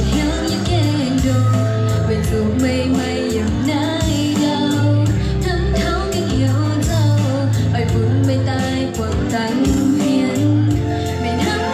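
A woman singing a Mien-language pop song live through a PA system, over electronic backing music with a heavy bass line and a steady beat.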